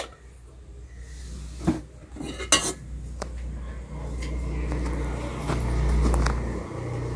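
Steel spoon scraping and clinking against a stainless steel pot as a thick paste is stirred, in scattered knocks and scrapes, over a low steady hum that grows louder in the second half.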